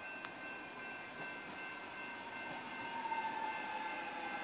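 Electric suburban train approaching the station, its motor whine slowly falling in pitch and growing louder as it slows for the platform.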